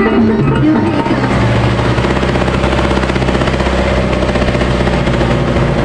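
An engine running steadily with a fast, even knocking pulse, with music fading out in the first second.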